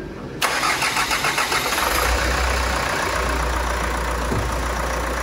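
Hyundai Grand Starex's rebuilt D4CB 2.5-litre four-cylinder turbodiesel being started: the starter cranks for about a second and a half, the engine catches, and it settles into a steady idle. The freshly installed engine runs smoothly.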